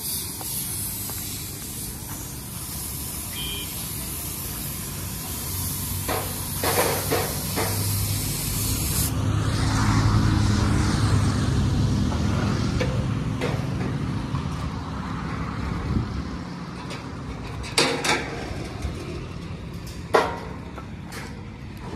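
Steady high hiss that cuts off abruptly about nine seconds in, over a low machine hum that swells and then fades, with a few sharp knocks in the middle and near the end.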